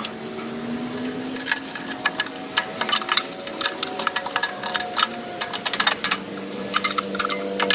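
Sharp metal clicks and scrapes in irregular clusters as a screwdriver pries at the side cover of a Predator small-engine crankcase, over a steady mechanical hum.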